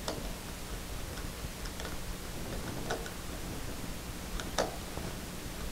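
Screwdriver tightening a brass terminal screw on a light switch to clamp the wire wrapped under it, giving a few irregular light clicks and ticks, the loudest about four and a half seconds in.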